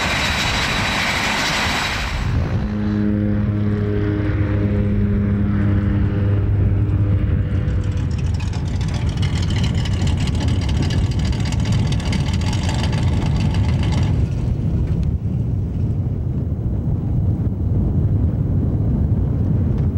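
Propeller aircraft engine noise: loud and close for the first two seconds, then the steady droning hum of the jump plane flying overhead, which fades into a low rumble after about eight seconds.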